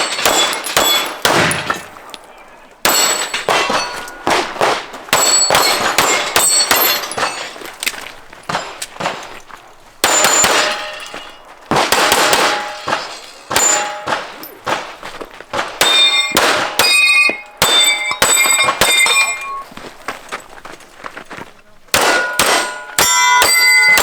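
Pistol fire on steel targets: strings of quick shots, each hit followed by the ringing clang of the steel plate, with short pauses between strings.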